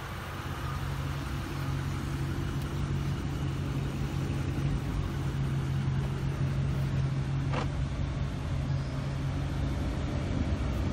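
Vehicle engine idling with a steady low hum, and a single short click about seven and a half seconds in.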